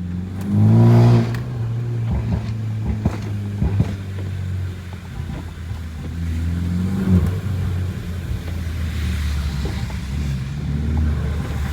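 Tuned BMW G20 330i's turbocharged four-cylinder engine running, revving up briefly about a second in and again more gently near seven seconds, with scattered small knocks over a steady engine hum.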